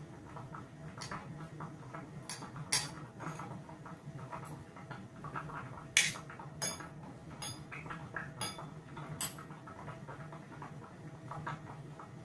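Metal fork and spoon clinking and scraping against a ceramic bowl while eating fried fish and rice. The sharp clinks come every second or so, the loudest about six seconds in.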